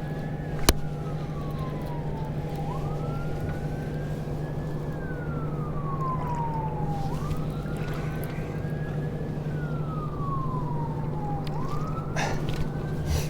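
A siren wailing, rising quickly and falling slowly about every four and a half seconds, over a steady low motor hum, with a sharp click about a second in.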